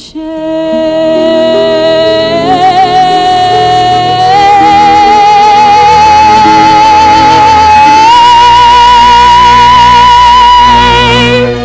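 A singer holds the word "shame" as one long high note with vibrato, stepping up in pitch three times over sustained orchestral accompaniment, then releases it near the end.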